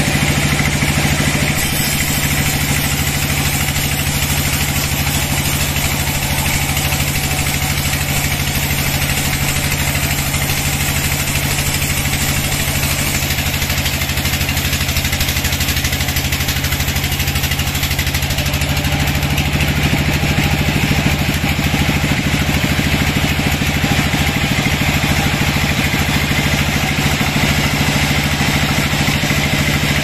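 Sawmill bandsaw running steadily with its blade cutting lengthwise through a teak log.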